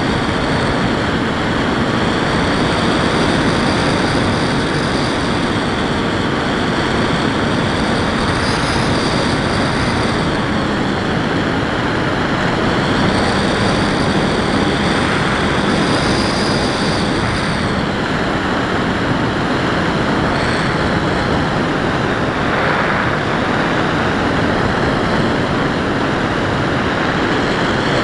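Onboard sound of an FPV Raptor model plane in flight: steady wind rush over the action camera, with the electric motor and propeller whining. The whine rises and falls in pitch a few times as the throttle changes.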